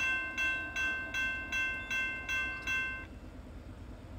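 Railroad grade crossing warning bell ringing rapidly, about two and a half strikes a second, as the crossing gates come down for an approaching train. It stops about three seconds in.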